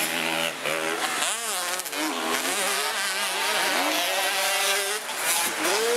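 Several motocross bike engines revving hard on a dirt track, the pitch climbing and dropping again and again as the riders go through the gears, with more than one engine heard at once.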